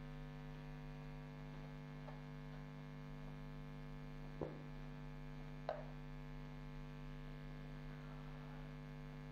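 Steady electrical mains hum, with two faint taps, one about four and a half seconds in and one just before six seconds.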